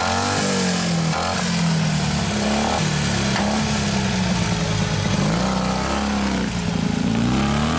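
Boxer-twin motorcycle engine revving up and down in short blips as it is ridden slowly over logs, with a sharper rev near the end.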